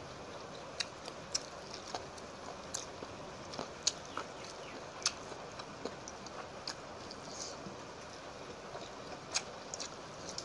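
Close-up eating of panta bhat (rice soaked in water) by hand: irregular wet clicks and smacks of chewing and of fingers in the soggy rice, over a steady background hiss.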